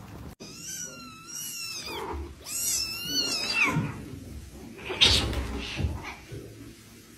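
Cat meowing: two long, wavering high-pitched calls in the first four seconds, then a louder noisy burst about five seconds in.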